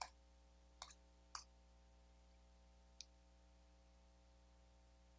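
Near silence over a steady electrical hum, with a few short clicks: one at the start, two about a second in, and a fainter one about three seconds in.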